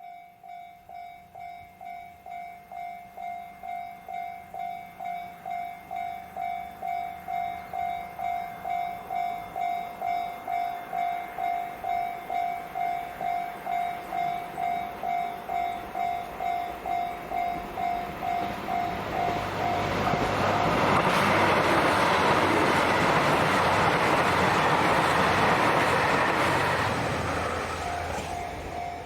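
Japanese level-crossing warning bell ringing at about two strikes a second, growing louder. About twenty seconds in, a diesel train runs over the crossing and drowns out the bell for some seven seconds; the bell is heard again near the end.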